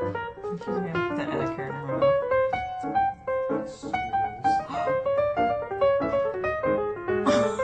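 Background piano music: a quick, light melody of short notes.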